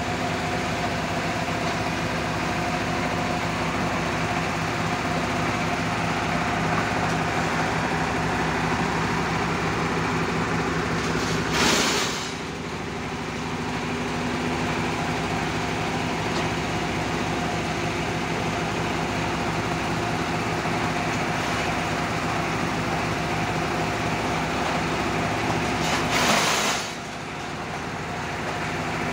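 Engine-driven machinery running steadily, with two short loud bursts of noise about 15 seconds apart, each followed by a brief drop in level.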